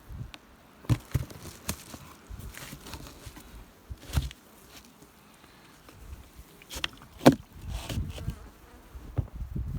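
Honeybees buzzing in a wintering hive, broken by irregular sharp clicks and knocks.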